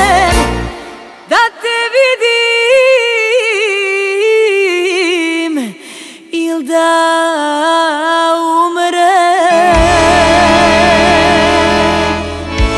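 Live Serbian folk song: a lone female voice sings slow, ornamented held notes with vibrato over almost no accompaniment. The full band with bass comes in strongly about ten seconds in.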